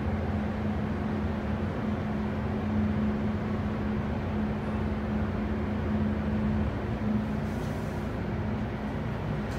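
Schindler glass elevator travelling down with a steady hum from its drive, which dies away about seven seconds in as the car comes to a stop at the lower landing; the doors then slide open.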